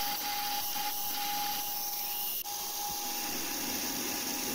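Compressed-air coolant mister hissing steadily over a running metal lathe, with a steady whine underneath, as a large twist drill and then a boring bar open up a bore in the workpiece. The sound breaks off for an instant about two and a half seconds in.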